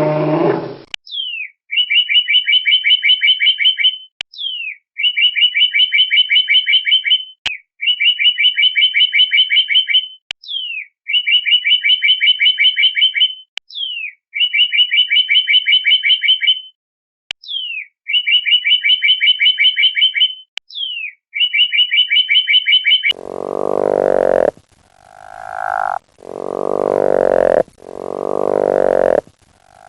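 Animal calls. A call that fits the end of a cow's moo sounds at the very start. Then a high, sharp downward chirp followed by a fast trill of about two seconds repeats seven times, roughly every three seconds. From about 23 seconds in, a lower animal call swells up and breaks off about every second and a half.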